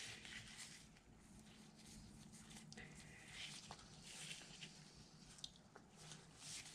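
Near silence with faint handling noises: gloved hands turning a transmission shaft and bearing, light rustling and a couple of small clicks, over a low steady hum.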